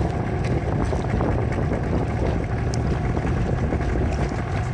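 A small boat's motor running steadily as it moves through the water, with a low hum under a wash of water noise and wind on the microphone.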